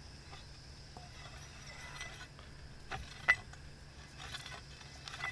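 Hand soil auger's shaft sections being screwed together: light scraping and small clicks from the threaded joint, with one sharp clink about three seconds in.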